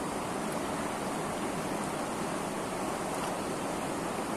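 River water rushing steadily over rocks in shallow rapids, an even, unbroken rush.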